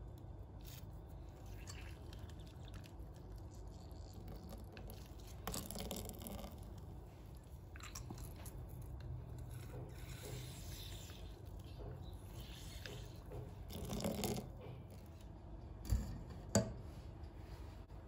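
Orange halves twisted and pressed on a glass hand juicer, with soft squishing and scraping of the peel and pulp against the glass ridges. Two sharp knocks near the end.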